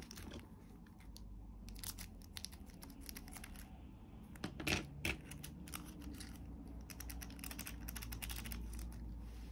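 Small plastic bag of tiny screws rustling and crinkling as it is handled and emptied, with a scatter of light clicks as the screws drop into a plastic compartment organizer. Two louder clicks come about five seconds in.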